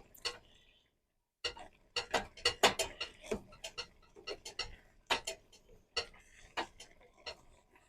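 Spoon knocking and scraping against a pan while stirring boiling macaroni, an irregular string of sharp clicks and taps a few times a second.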